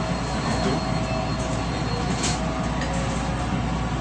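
A JR West 223 series electric train running at speed: a steady rumble of wheels on rail with faint steady motor tones, heard from inside the train.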